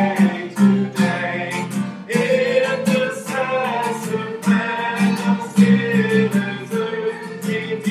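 Singing of a worship song accompanied by a steadily strummed acoustic guitar.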